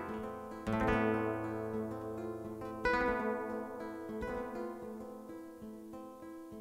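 Acoustic guitars playing a flamenco-rumba style instrumental. A strummed chord rings out about a second in and another about three seconds in, each dying away, with quieter picked notes between them.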